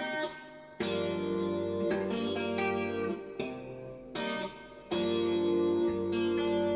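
Fender Stratocaster electric guitar played with a clean tone, in a mix of tapping and arpeggios: a run of about seven struck note clusters over bass notes, each left to ring.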